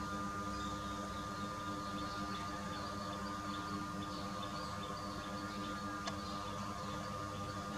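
Steady background hum with faint, high, repeated chirping and one sharp click about six seconds in.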